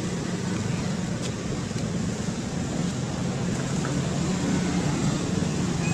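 Steady low rumble with a hiss over it, holding an even level; a faint click about a second in.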